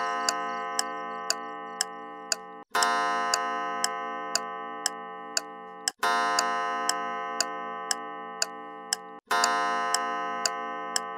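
Clock ticking about twice a second while its gong strikes the hour, a ringing stroke about every three seconds that fades away before the next.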